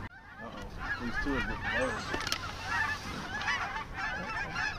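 A large flock of geese honking, many overlapping calls at once.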